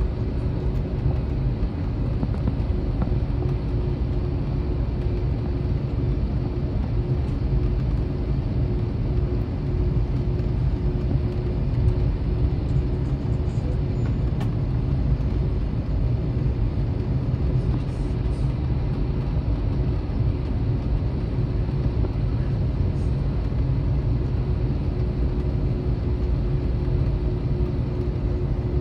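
Steady cabin noise of an Airbus A321 airliner heard from inside the cabin: an even rumble of engines and airflow with a steady hum running through it.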